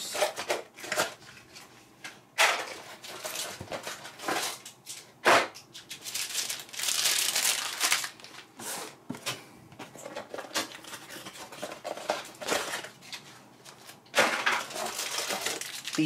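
Hard drive retail packaging being handled: cardboard boxes knocked and slid about, with crinkling of plastic and anti-static bags. Irregular knocks, two of them sharper, and a longer stretch of rustling about six seconds in.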